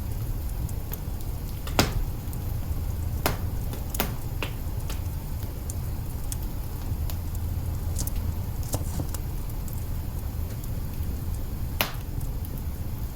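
Wood fire crackling in an open hearth: a steady low rumble from the burning, broken by scattered sharp pops, the loudest about two seconds in and another strong one near the end.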